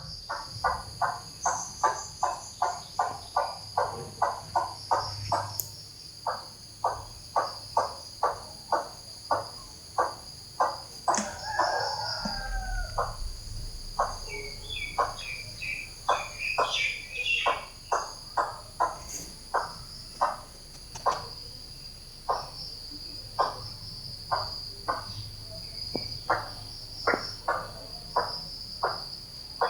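Crickets trilling steadily at a high pitch, with a short sound repeating two to three times a second throughout. A few small bird chirps come in the middle.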